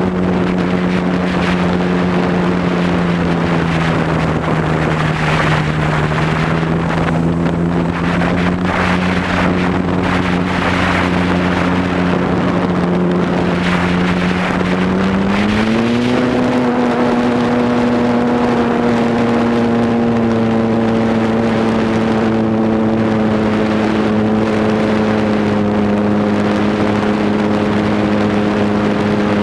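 Model Cub airplane's motor and propeller droning steadily in flight, with wind rushing over the onboard microphone. The pitch sags a little about four seconds in, then climbs quickly about fifteen seconds in as the throttle is opened, and holds at the higher pitch.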